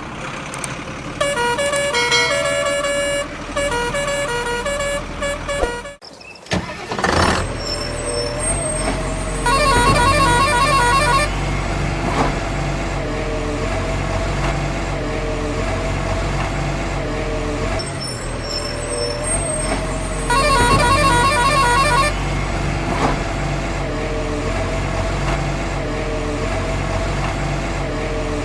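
Electronic truck sound effects of the kind built into toy dumper trucks and diggers: a steady engine drone with horn honking in two bursts partway through, and a run of electronic beeps in the first few seconds.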